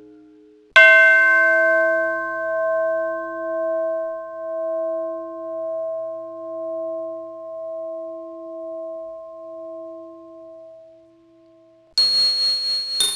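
A bell struck once, ringing and slowly fading with a gentle pulsing waver for about eleven seconds before cutting off abruptly. Right after, a brighter, higher-pitched bell begins, struck again about a second later.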